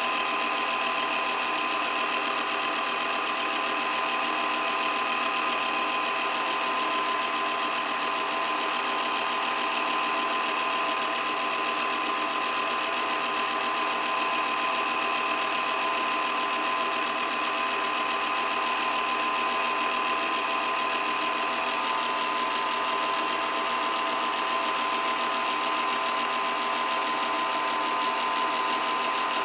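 8mm film projector running steadily: a continuous mechanical whir and clatter of the film transport, with a steady tone throughout.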